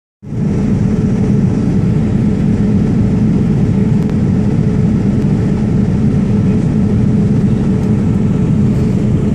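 Steady low drone of airliner cabin noise in flight.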